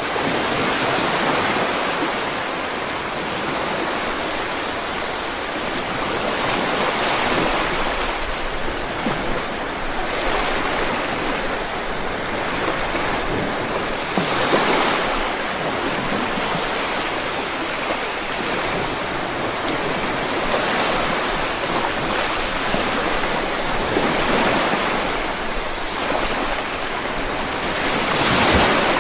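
Steady rain, an even hiss that swells and eases every few seconds.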